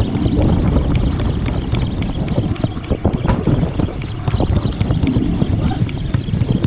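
Wind buffeting an action camera's microphone aboard a small fishing boat at sea: a steady low rumble with scattered knocks and clicks.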